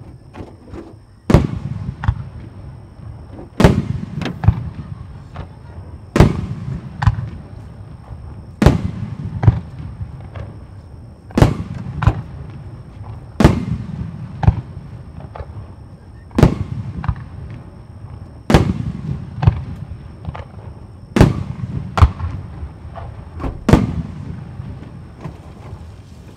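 Aerial firework shells bursting in a star mine barrage: about a dozen loud bangs, one every two seconds or so, each trailed by a low rumbling echo, with smaller cracks in between.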